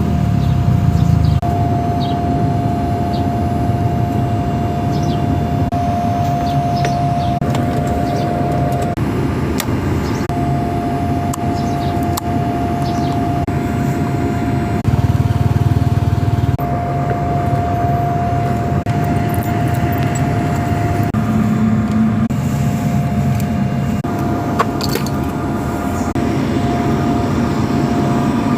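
Honda Supra underbone motorcycle's engine running steadily under way, its pitch and level shifting a few times. A steady thin whine drops in and out alongside it.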